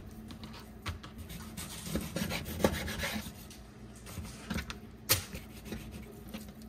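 Chef's knife cutting through skin-on striped bass fillets on a plastic cutting board: rasping, scraping strokes through the skin, with a few sharp knocks of the blade or fish on the board.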